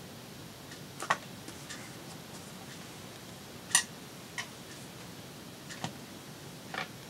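A few light, sharp clicks and taps of hands working with paper and metal tweezers on a craft mat, about five in all, the loudest about a second in and just under four seconds in.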